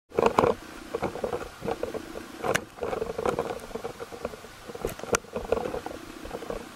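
Underwater sound through a submerged camera: irregular crackling and water movement with many small clicks, two sharper clicks standing out about two and a half and five seconds in.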